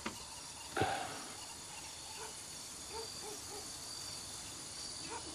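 Quiet tropical outdoor ambience: a steady, high insect drone with a few faint chirps, and one short knock about a second in.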